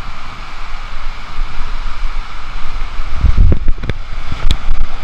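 Water rushing and a rider sliding fast down an enclosed tube water slide, a steady loud hiss. There is a cluster of heavy thumps and knocks about three seconds in and another near the end.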